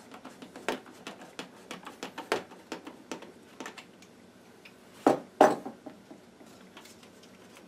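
Light plastic clicks and taps of a Ninebot One's plastic light ring and side pad being fitted back onto the shell by hand, with two louder knocks about five seconds in.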